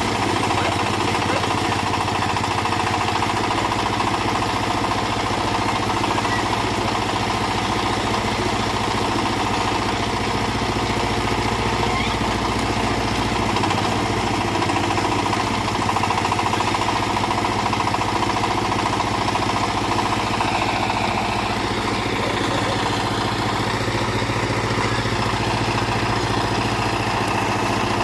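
A small backhoe's engine running steadily under work.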